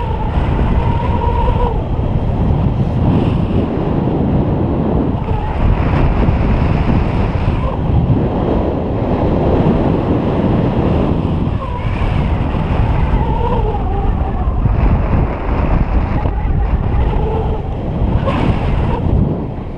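Airflow of a paraglider in flight buffeting the camera's microphone: a loud, steady rush of wind noise, heaviest in the low range.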